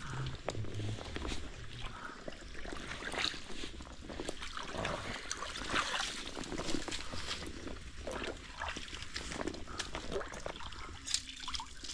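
Pond water splashing, sloshing and trickling in an irregular run of small splashes as leaves and sticks are cleared out of a fish pond.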